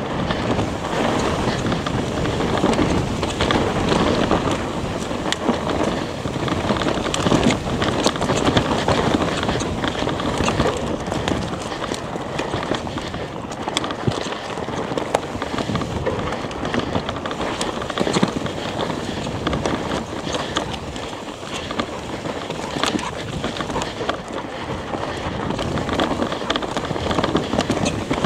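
Wind buffeting the camera microphone over the crunch of mountain-bike tyres rolling down loose, dry dirt, with scattered clicks and rattles from stones and the bike.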